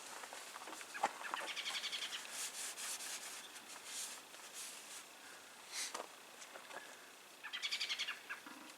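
A small bird calling in quick chirping trills: one longer run of rapid chirps early on, and a shorter burst of about ten chirps near the end, with a few sharp ticks between them.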